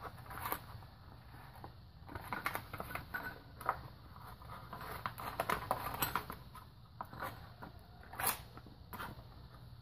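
Plastic bag crinkling and rustling as oil-soaked engine head bolts are pulled out of it, with irregular sharp clicks of the bolts being handled; the loudest click comes near the end.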